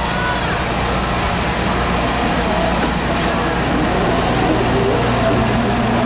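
Narrow-gauge diesel locomotive DL47 running steadily as it hauls its train slowly around a curve, its engine growing slightly louder as it draws close.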